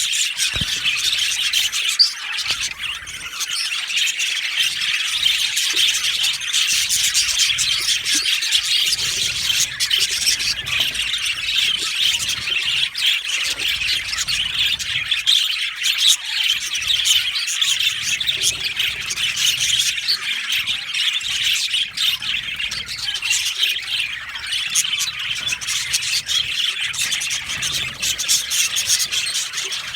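A flock of budgerigars chattering continuously, many overlapping chirps, warbles and squawks at once.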